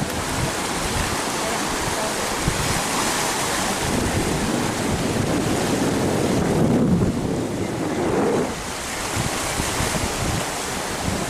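Mediterranean surf washing over a rocky shoreline, mixed with wind buffeting the microphone in gusts.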